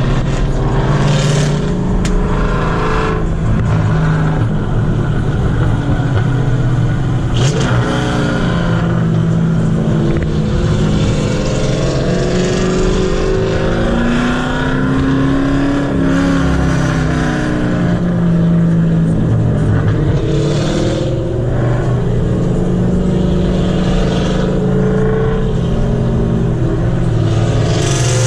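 Loud car engines running and revving, their pitch rising and falling again and again.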